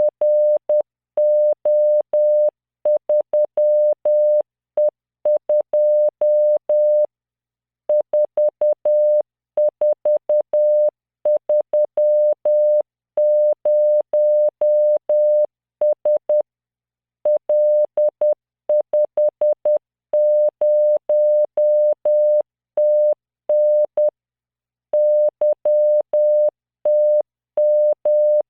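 Morse code sent at 10 words per minute by the LearningMorse training program: a single 600 Hz tone keyed on and off in dots and dashes, spelling random five-character groups, with short pauses between groups.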